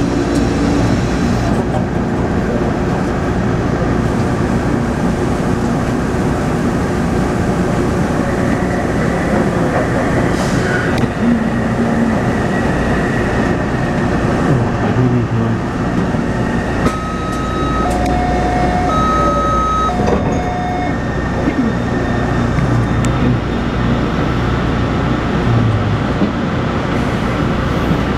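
Taipei Metro C301 train running, heard from inside the car: steady wheel and rail noise with the whine of its refurbished propulsion inverter, which gives this train its abnormal inverter noise. A few short beeps at two pitches sound a little past halfway through.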